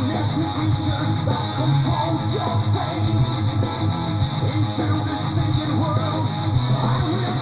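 Melodic metal recording: electric guitars and bass playing a dense, steady instrumental passage.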